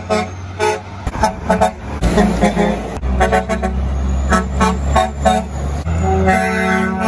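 Repeated short horn-like toots with a longer held note near the end, over the steady low rumble of a heavy truck's diesel engine and passing traffic.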